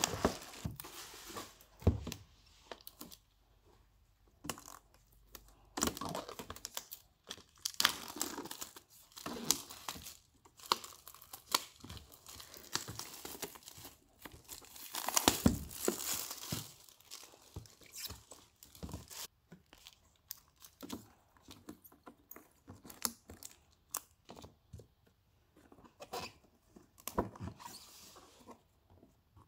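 Plastic packaging (bubble wrap and clear wrap) crinkling and rustling as a boxed set is unwrapped by hand, in irregular bursts with short pauses and a few sharp knocks of cardboard and the box being handled.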